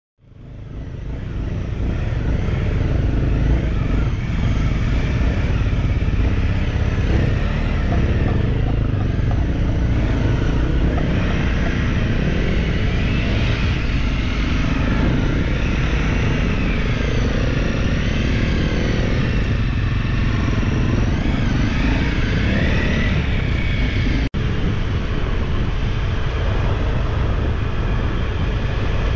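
Small dual-sport dirt bike engines running on the move, their pitch rising and falling with the throttle, over a heavy low rumble. The sound cuts out for an instant late on.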